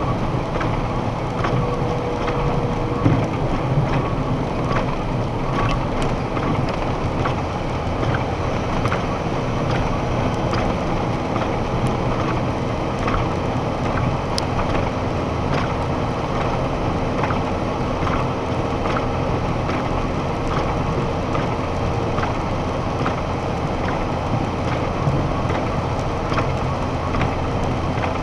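Steady engine and road noise inside a box truck's cab cruising at about 60 mph, with faint ticks scattered through it.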